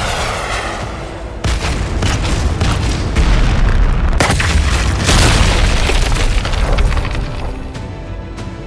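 Anime fight sound effects: heavy booming impacts and blasts, with sudden hits about one and a half, three, four and five seconds in. Music runs underneath and takes over as the booms die down near the end.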